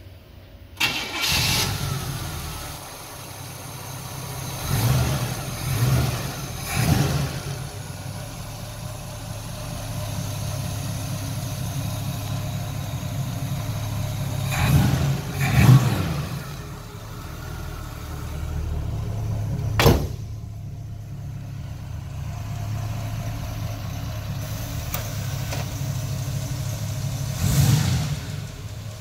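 1967 Chevrolet Camaro's V8 engine cranks and catches about a second in, then idles with several short revs of the throttle in groups. There is a single sharp crack about two-thirds of the way through.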